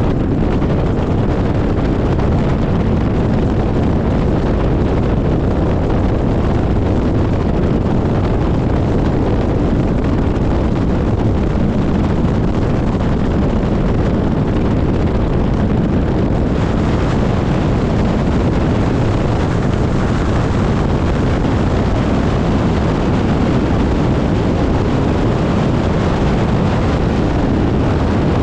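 Biplane in flight: its engine and propeller run steadily under heavy wind rushing over the microphone.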